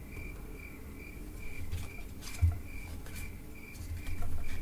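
A steady run of short, high chirps at about four a second, insect-like. Soft rustles and a low bump, about two and a half seconds in, from trading cards being handled.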